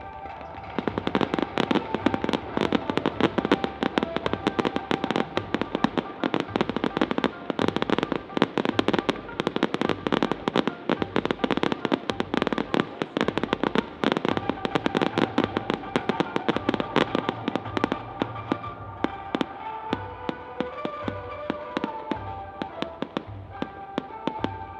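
Fireworks crackling in a dense, rapid stream of sharp pops, starting about a second in and thinning out near the end, with show music playing underneath.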